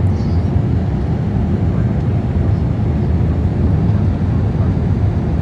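Steady low rumble of an airliner's jet engines and rushing air heard inside the passenger cabin in flight.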